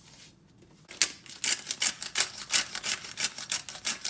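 Hand pepper mill grinding black peppercorns: a fast, even run of gritty crackles, about five or six twists a second, starting about a second in.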